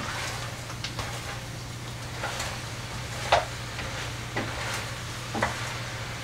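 A spatula stirring chunks of beef and vegetables in a stainless steel pot, scraping and knocking against the pot about once a second, the loudest knock a little past the middle, over a steady sizzle from the cooking stew.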